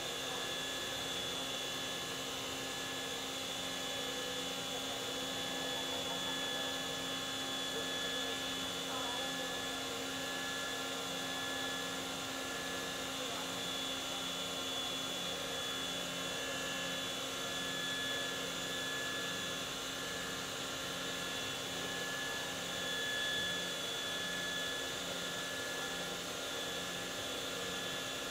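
Kitamura Mycenter 3XiF CNC vertical machining center running: a steady hum with several high whining tones and a faint regular pulsing underneath, as its table traverses along the X axis.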